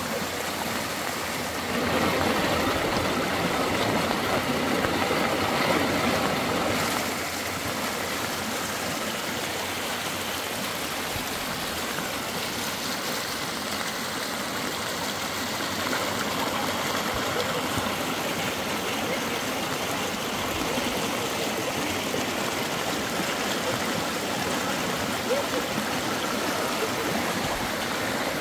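Steady rush of flowing water, like a stream running fast, louder for a few seconds starting about two seconds in.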